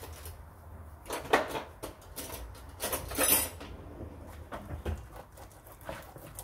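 Kitchen handling noises while a tacos is being assembled: scattered clicks and knocks of containers and utensils, a sharp click about a second in and a brief hissing, rustling spurt about three seconds in.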